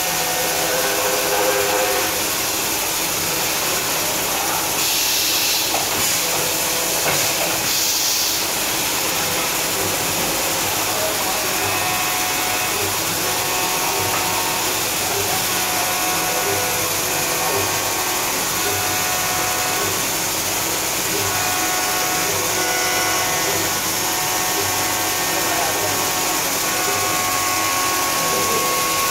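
CNC profile machining center milling an aluminium profile: a steady cutting whine made of several held tones over a loud hiss from the coolant spray at the cutter. Two brief, brighter bursts of hiss come about five and eight seconds in.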